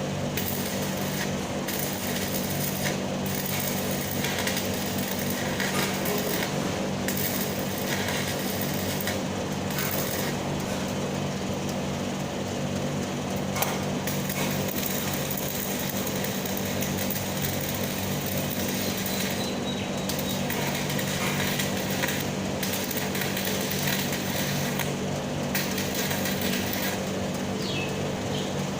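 Stick-welding arc crackling steadily over a steady low hum, with brief breaks in the crackle.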